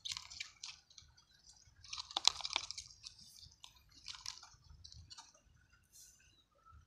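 Irregular crackling and rustling handling noises, with a cluster of sharp clicks about two seconds in as the loudest moment.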